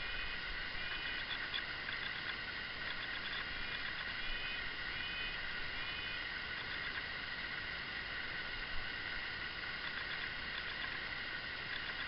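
A steady, high-pitched chorus of distant calls, with short whistled notes coming every second or two over it; no distinct pecking taps stand out.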